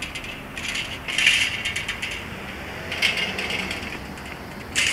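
Bursts of rapid mechanical clicking and rattling, like a ratchet: one about a second in, another around three seconds, and a short sharp one at the end.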